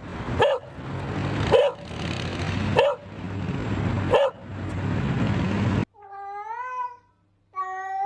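A dog barks four times, about one bark every second and a quarter, over a steady rushing background noise. About six seconds in this cuts to a domestic cat giving two long meows.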